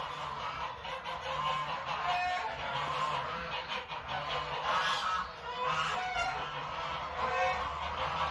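Domestic poultry calling: many short honking calls overlapping throughout.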